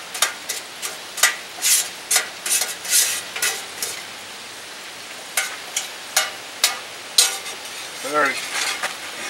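A metal spatula scraping and clinking against a cast-iron Dutch oven as browned chicken pieces are shifted in it, over a faint steady sizzle. The scrapes come thick for the first few seconds, then as a few separate clicks.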